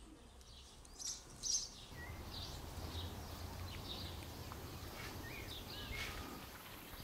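Small birds chirping outdoors: short high chirps, two louder ones about a second in, and little whistled glides, over a low steady rumble that comes up about two seconds in.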